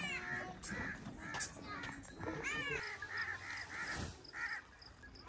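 Crows cawing: a drawn-out caw at the start and another about two and a half seconds in, then a quick run of about five short caws.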